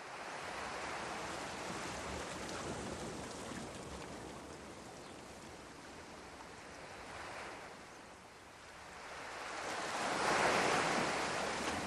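Ocean surf: a steady wash of waves that eases off in the middle and swells up again near the end.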